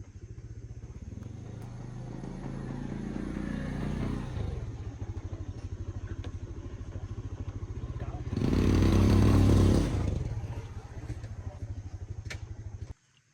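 Small petrol engine running with a rapid low firing beat, building gradually. It revs up hard for a couple of seconds past the middle, settles back, then cuts off suddenly near the end.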